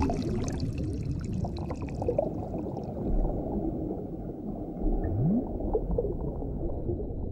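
Underwater ambience sound effect: a muffled low rumble of water, with bubbling that thins out over the first couple of seconds. A short low tone slides upward about five seconds in.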